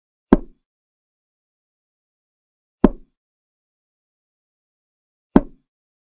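Digital chess board's piece-move sound effect: three short sharp clicks, one every two and a half seconds, as moves are played.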